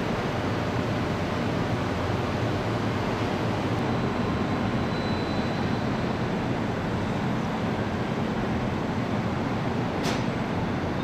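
Steady hum and rumble of assembly-plant machinery at a car final-inspection line, with a single sharp click about ten seconds in.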